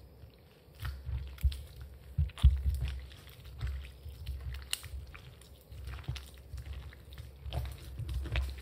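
A hand mixing a wet dough into flour by hand: soft, irregular squelches and crackles, with a few low thumps, the loudest about two and a half seconds in.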